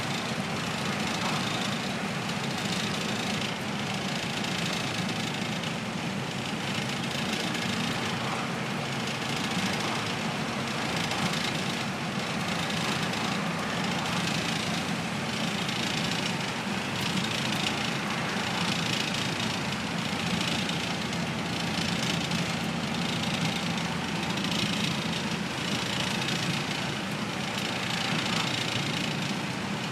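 Routemaster double-decker bus under way at a steady speed, heard from the upper deck: its diesel engine drones evenly beneath the body noise and the rush of road and wind.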